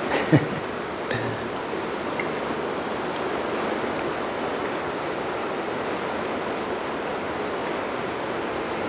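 Steady hiss of rain, with a few light clinks of forks and spoons on plates in the first couple of seconds.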